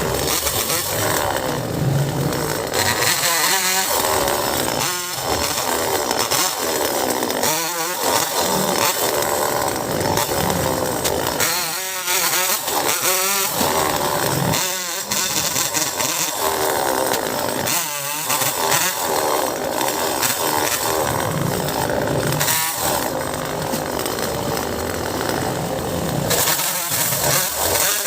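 Chainsaw running and cutting mango wood, continuous for the whole stretch.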